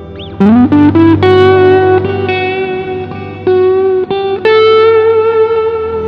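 Acoustic guitar music layered with looping: single plucked notes ring on over a low sustained drone, with a quick slide up into a note about half a second in.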